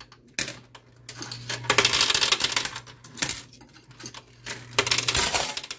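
Quarters clinking and clattering onto the coin-covered playfield of a coin pusher machine, in two runs of rapid clicks, over a steady low hum.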